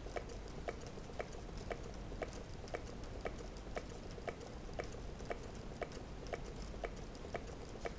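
Meccano-built model Stirling engine running, its mechanism giving off a regular click about twice a second, with fainter clicks in between.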